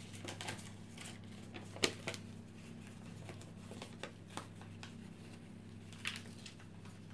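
Light handling sounds of paper and packaging: scattered small clicks and rustles, the sharpest about two seconds in, over a steady low hum.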